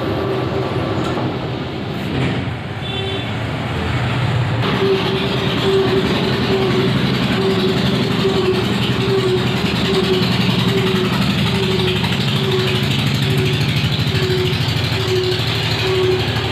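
Lathe machine running during a step-turning operation: a steady mechanical hum with a tone that pulses a little more than once a second. It gets louder about four and a half seconds in.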